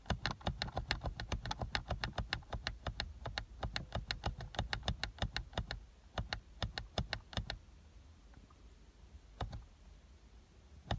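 A small push button beside the clock of a Renault Megane 3 dashboard display, pressed over and over, each click stepping the hour on by one. The clicks come quickly, about five a second, for some seven seconds, then slow to a few single presses near the end.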